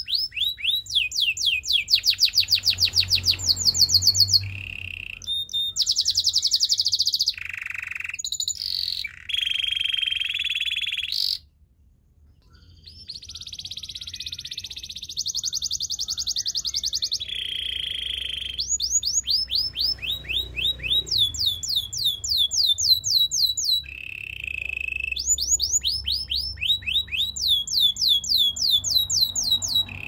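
Canary singing a long, varied song: fast rolls of repeated falling notes alternate with held whistled tones, with a brief break about twelve seconds in.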